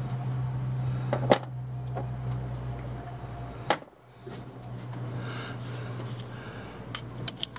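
A few sharp metallic clicks and taps of a hand socket tool working in a truck's engine bay, a quick cluster of them near the end, over a steady low hum.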